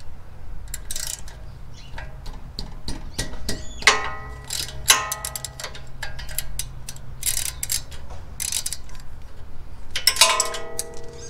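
Hand ratchet clicking and steel sockets clinking as a socket wrench is fitted to a brake caliper's mounting bolts. There are many sharp clicks, with two louder ringing clinks of metal, about four seconds in and again near the end.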